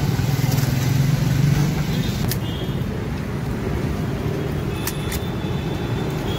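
Street traffic: motor vehicle engines running steadily, louder for the first two seconds as one passes close. A few sharp clicks and brief faint high-pitched tones come through in the middle and near the end.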